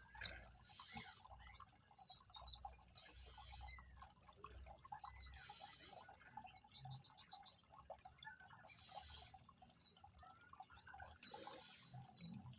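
Pygmy tits (cerecet jawa) calling: many high, thin chirps, each sweeping down in pitch, given in quick runs that overlap throughout.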